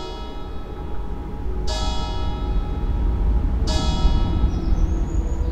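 Instrumental background music with a bell-like chime struck about every two seconds, each ring dying away, over a low rumble.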